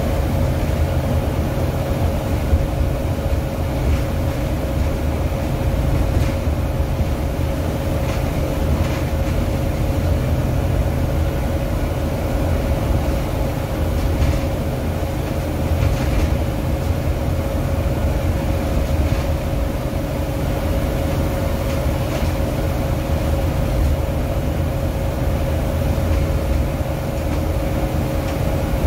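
Cabin noise on the upper deck of a Volvo B9TL Enviro 400 double-decker bus under way: the steady low rumble of its diesel engine and tyres, with a steady whine held at one pitch and a few faint rattles.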